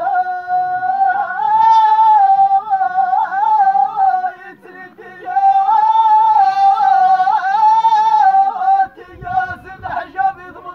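A man singing tamawayt, the unaccompanied Amazigh sung call, high and drawn out: two long held phrases with wavering ornaments, then shorter broken notes near the end.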